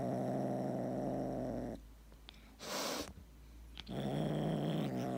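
Tabby kitten purring in two long, steady stretches, with a break about two seconds in that holds one short breathy puff.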